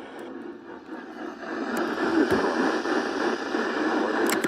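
Static hiss from a radio receiver tuned to a weak signal, narrowed to a band like a telephone line, growing louder about a second and a half in.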